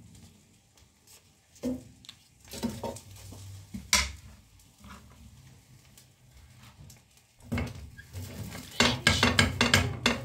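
Kitchen utensils and dishes clattering: a few separate knocks and clinks, one sharp one about four seconds in, then a quick run of knocks in the last two or three seconds.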